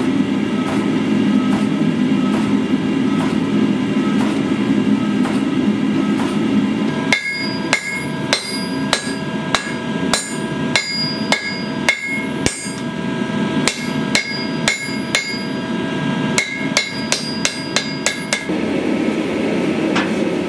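Hand hammer striking a glowing pattern-welded steel bar on an anvil: more than a dozen sharp blows at an uneven pace of about one to two a second, each one ringing. Before and after the hammering there is a steady low hum from the forging equipment.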